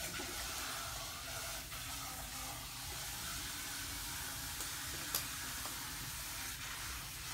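Steady low hiss of room background noise, with a single sharp click about five seconds in.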